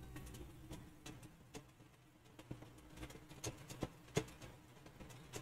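Faint, irregular clicks of a computer mouse and keyboard in use, over a low steady hum.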